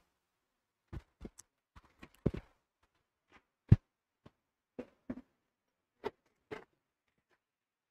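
Scattered short knocks and clicks, about a dozen of them, with silence between; one stronger low thump near the middle.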